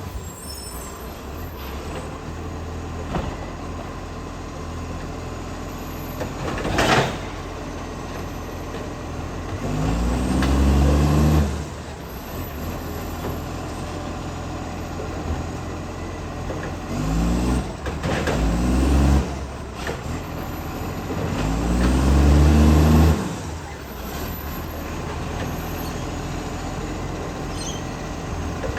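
International ACCO garbage truck's diesel engine, which has an exhaust leak, running steadily and revving up three times, its pitch rising each time, as it works through a bin pickup. A short air-brake hiss comes about a quarter of the way in.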